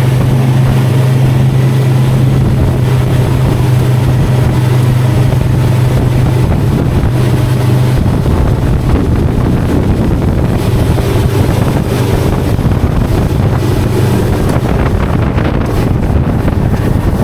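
Yamaha 175 HP SHO outboard motor running at speed, a steady engine note that shifts slightly about eight seconds in. Heavy wind rushes across the microphone.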